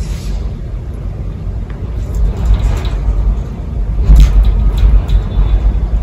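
Strong wind gusting: a deep rumble that swells and eases, loudest about four seconds in.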